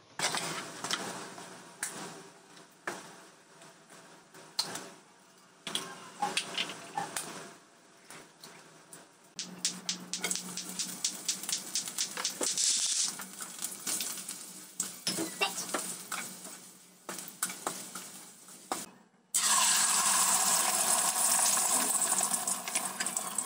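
Kitchen knife chopping carrots on a cutting board with separate sharp knocks, then a spatula scraping and clattering in a wok as carrot strips are stir-fried in hot oil. About nineteen seconds in, beaten egg hits the hot oil and a loud, steady sizzle starts suddenly.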